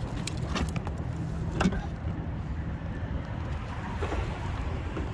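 Steady low rumble of traffic crossing the road bridge overhead, with a few sharp clicks and knocks; the loudest comes about a second and a half in.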